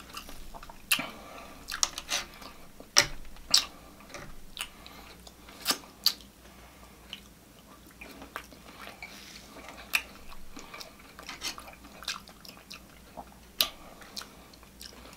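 Close-miked chewing of a mouthful of food, with irregular sharp, wet mouth clicks and smacks.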